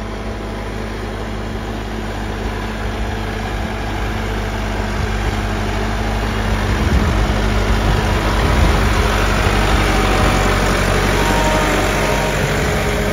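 Massey Ferguson 385 tractor's four-cylinder diesel engine running under load as it works a rotavator through a flooded, muddy field, with the churn of mud and water at the wheels. It grows louder through the middle as the tractor comes closer, then eases a little near the end.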